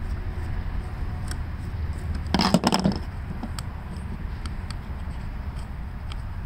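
A screwdriver clattering onto the work table in a short cluster of sharp knocks about two and a half seconds in, among light handling of small parts. A low steady rumble runs underneath.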